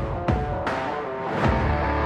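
Dramatic background music with deep hits that drop in pitch, about one every three-quarters of a second.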